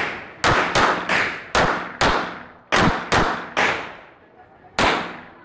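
Semi-automatic pistol firing a rapid string: about nine shots a few tenths of a second apart, each trailing off in echo, with a pause of over a second before one last shot near the end.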